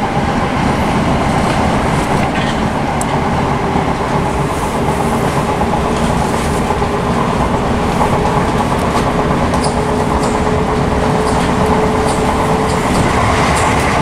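Southeastern Class 465 Networker electric train running at speed, heard from inside the carriage: a steady rumble of wheels on track, with scattered clicks over rail joints and points and a faint steady whine.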